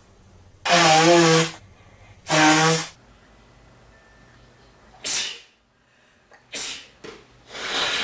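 A man sneezes twice in quick succession, two loud voiced sneezes about a second and a half apart. Then come two short breathy bursts and, near the end, a longer rushing blast of air.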